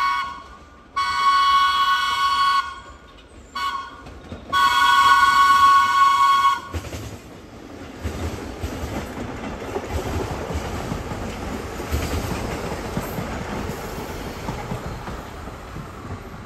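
Vintage New York subway train sounding its horn in a series of blasts: the tail of one, a long one, a short one, then the longest. The horn then gives way to the low rumble and clatter of the train running on the rails.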